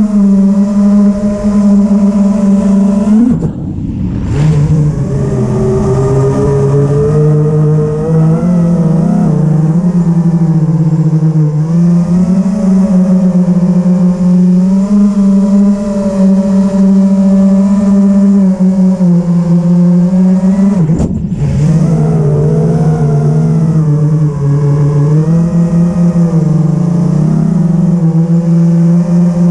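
5-inch FPV quadcopter's brushless motors and propellers whining steadily in flight, the pitch shifting up and down with throttle. Twice, about three seconds in and again about 21 seconds in, the whine breaks briefly into a noisy rush before settling at a new pitch.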